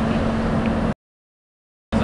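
Caterpillar 320D excavator running with its hydraulics driving a Ponsse H7 harvester head under no load: a steady machine hum with one constant tone. The sound drops out to dead silence about a second in and comes back just before the end.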